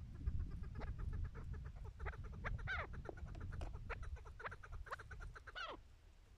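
Chukar partridge calling: a run of rapid clucks that grows denser, with two loud calls falling in pitch, one in the middle and one near the end.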